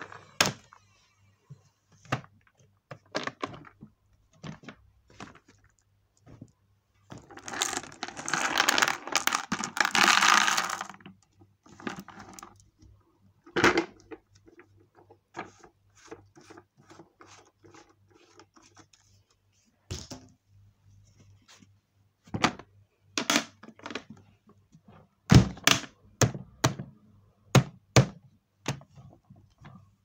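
Handling noises from a Henry vacuum cleaner that is switched off: scattered clicks, knocks and thunks of its plastic body, lid and hose. About a quarter of the way in comes a rustling clatter lasting about three seconds, and near the end a quick run of sharper knocks.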